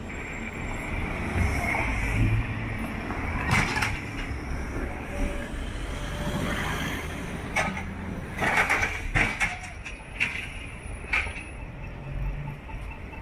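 Street traffic running, with a city bus approaching near the end. Several sharp knocks stand out above the traffic, the loudest a cluster about two-thirds of the way through.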